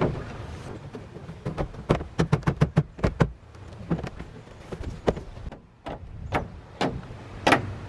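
Hollow plastic knocks and clatter from a resin shed wall panel being fitted and pushed into its slots: a quick run of about ten knocks in the first few seconds, then scattered single knocks.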